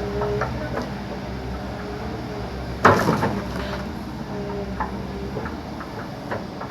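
Backhoe engine running steadily, with scattered creaks and knocks and one loud crash about three seconds in.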